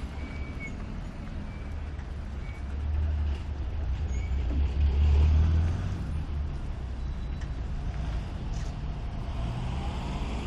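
Low rumble of a motor vehicle passing on a street, swelling loudest about three to six seconds in.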